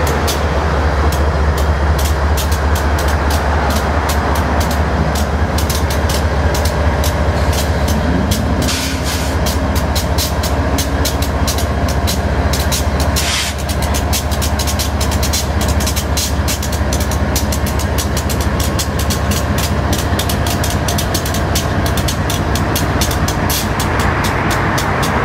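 Union Pacific GE AC44CW-type diesel-electric locomotives running: a steady, deep engine drone with a dense stream of sharp clicks over it.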